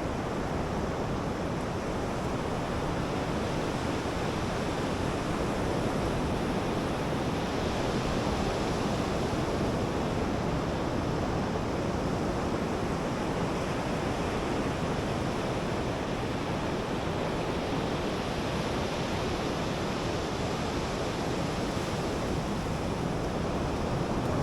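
Ocean surf washing onto a beach, a steady wash of noise.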